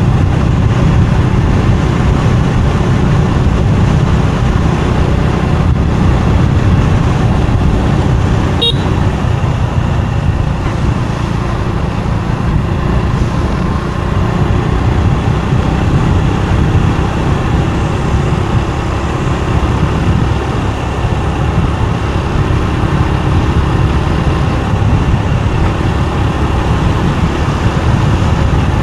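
Motorbike riding noise: a steady, loud rush of wind and road noise with the engine running underneath. A single short blip stands out about nine seconds in.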